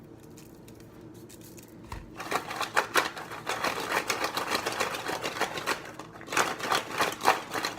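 Frozen cooked shrimp clattering in a rapid, irregular rattle as they are tossed with dry seasoning. The rattle starts about two seconds in and keeps going.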